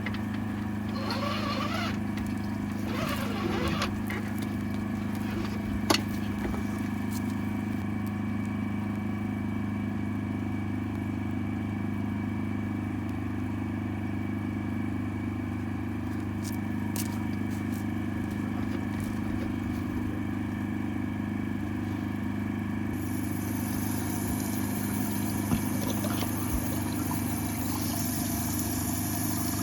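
Engine-driven high-pressure drain-jetting washer running steadily with an even hum. A high hiss joins about three-quarters of the way through.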